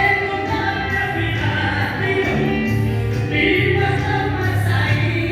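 Recorded vocal music with singing played loud through a church PA system's loudspeakers, over a steady bass line. The owner says the bass speakers are not yet fully adjusted.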